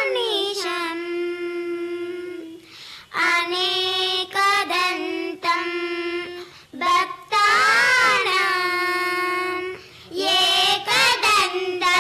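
A child singing a Sanskrit prayer verse to Ganesha solo and unaccompanied, holding long drawn-out notes with small pitch turns, phrase after phrase with short breaths between.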